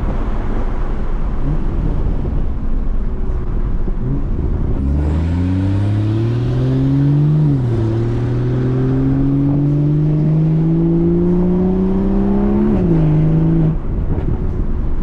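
BMW 340i's turbocharged B58 inline-six through a resonator-deleted Valvetronic axle-back exhaust, accelerating: the engine pitch climbs, drops at an upshift about halfway through, climbs again and drops at a second shift near the end, then cuts off. Steady road noise underneath.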